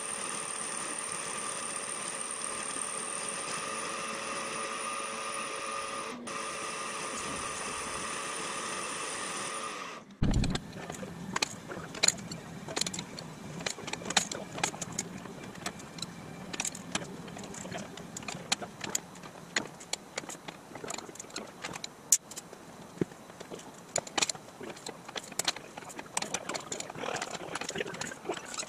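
A shop machine tool runs with a steady whine for about ten seconds and stops abruptly. Then comes a long run of sharp metallic clicks, clinks and knocks from metal parts and tools being handled.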